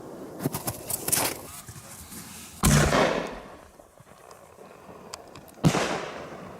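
Firecrackers going off: a quick run of small sharp cracks, then two loud bangs about three seconds apart, each trailing off in an echo.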